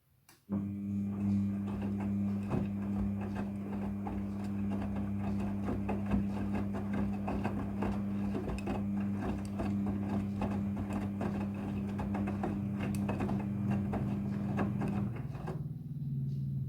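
Midea front-loading washing machine running a wash with jackets: the drum motor starts suddenly with a steady hum over dense irregular clicking and clatter, and the hum cuts out near the end, leaving a lower tone.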